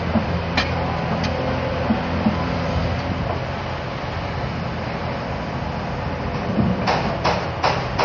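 Hyundai Robex 300LC crawler excavator's diesel engine running steadily as the boom and bucket move, with a few sharp knocks near the end as the bucket comes down on the dirt.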